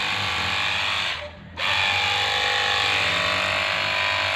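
Cordless battery-powered washing water gun spraying, its pump motor whining steadily over the hiss of the spray. The trigger is let go for about half a second a little over a second in, then the pump starts again.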